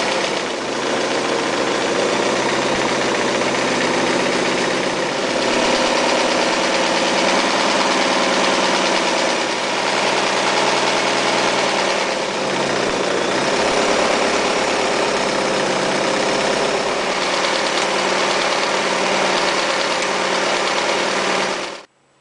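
Mitsubishi MAZ4 electric sewing machine running steadily as it stitches, then stopping abruptly near the end.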